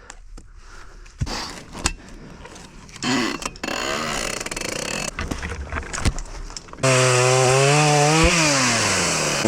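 Chainsaw: some clicks and knocks, then it starts up about three seconds in and runs unevenly. About seven seconds in it goes loud at high revs, its pitch sagging and climbing again as it cuts through a fallen tree.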